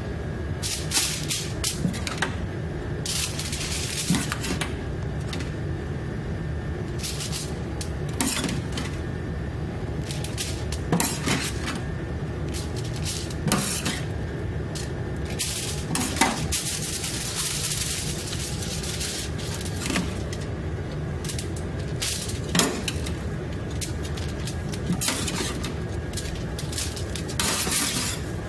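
Dishes, food containers and utensils clinking and clattering every second or two over a steady low hum.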